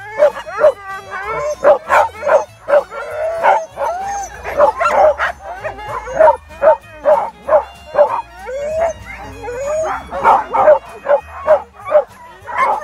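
A team of harnessed sled dogs (huskies) barking, yelping and howling together in a dense, unbroken din, several calls a second overlapping with rising and falling yelps. It is the excited racket of a hitched team waiting to run.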